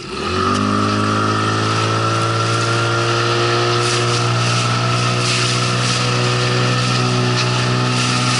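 9.9 hp outboard motor opened up to full throttle: its pitch climbs quickly in the first half-second, then holds steady as it pushes a PVC inflatable boat loaded with four men toward planing, with wind and water hiss over it.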